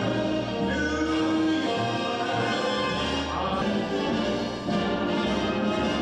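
Orchestral music with brass, held chords over a low bass note.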